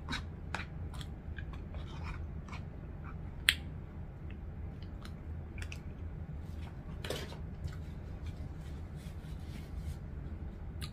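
Close-up chewing and mouth noises of someone eating spaghetti, with small clicks of a plastic fork in a cardboard box. There is a sharp tap about three and a half seconds in and a brief rustle about seven seconds in.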